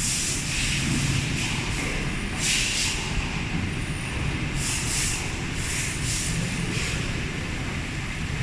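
Machining workshop noise: a steady low hum of machinery, with short hissing bursts every second or so.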